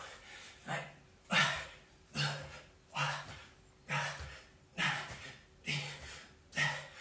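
A man breathing hard and fast during push-ups: a sharp, half-voiced puff of breath a little more often than once a second, about eight in a row.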